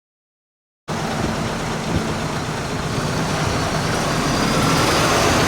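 Road traffic: a motor vehicle's engine running close by over general street noise, cutting in suddenly about a second in and growing slightly louder toward the end.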